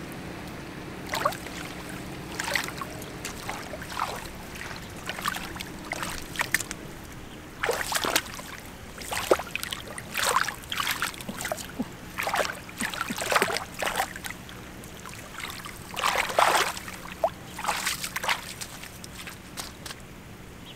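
Hands splashing and sloshing through shallow muddy water, groping in the mud for fish: irregular splashes that come thicker after several seconds.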